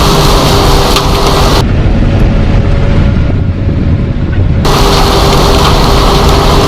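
Heavy farm machinery running at corn harvest: a loud, steady engine rumble with a rushing hiss over it. The hiss drops away suddenly about one and a half seconds in and comes back suddenly near the middle, with the low rumble carrying on underneath.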